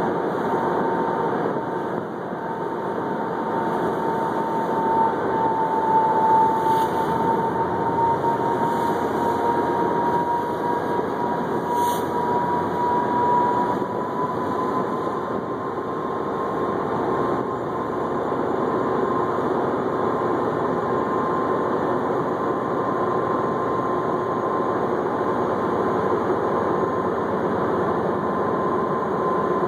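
A steady mechanical drone with a high whine that drifts slightly in pitch.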